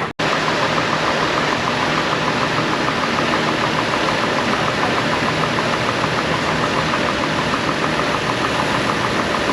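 GMC Envoy engine idling steadily, with a fast, even ticking over the running sound.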